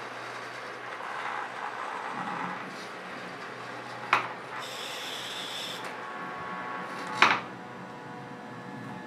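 Servo motors of a small 3D-printed robotic arm whirring as it swings and tilts a cup, with two sharp clicks, one about four seconds in and one about seven seconds in.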